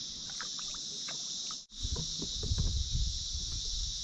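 Steady high-pitched chorus of insects along the river. The sound cuts out briefly a little before halfway, and after that low rumbling and scattered knocks come in under the chorus.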